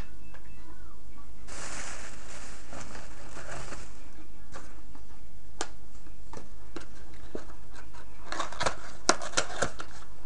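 Plastic and cardboard packaging of a small gun part being handled: rustling about a second and a half in, scattered clicks, then a quick run of sharp clicks and taps near the end, over a steady low hum.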